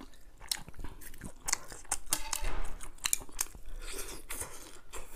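A person chewing and biting off skewered crayfish tails close to a clip-on microphone: irregular crisp clicks and crunches as she eats.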